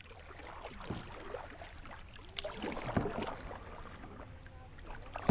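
Quiet water and gear sounds around a sit-on-top kayak: soft lapping with a few faint irregular knocks and clicks.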